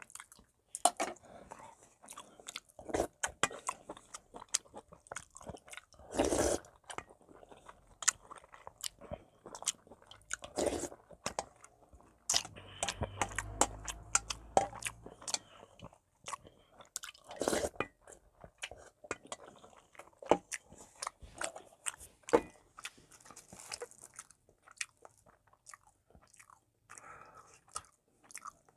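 Close-miked eating: wet chewing and smacking with many small clicks of wooden chopsticks against a stainless steel bowl. About halfway through, a longer few-second sound as the bowl is raised and soup is sipped from it.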